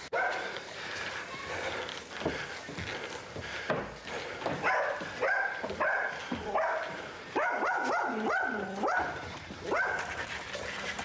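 A dog barking repeatedly, a dozen or so short barks, several in quick runs near the middle.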